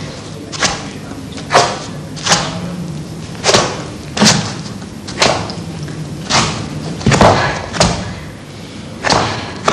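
A series of heavy thuds, roughly one a second at uneven intervals, each with a short ringing tail, over a low steady hum.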